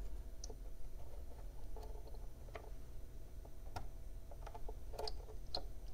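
Faint, scattered clicks and scrapes of multimeter probe tips against a PS5 power supply's output terminals as they fail to make good contact, over a low steady hum.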